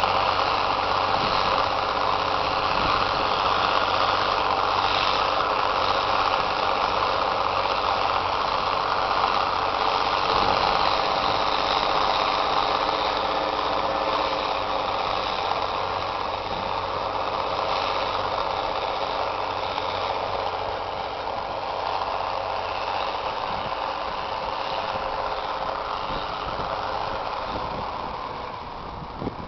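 International Harvester 1486 tractor's turbocharged six-cylinder diesel running steadily under load as it pulls a chisel plow. The sound grows fainter over the last several seconds as the tractor moves away.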